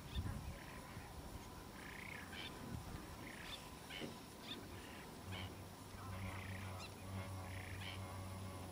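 Bar-headed geese giving short, faint honking calls here and there while they feed, with a low steady hum that comes in about five seconds in.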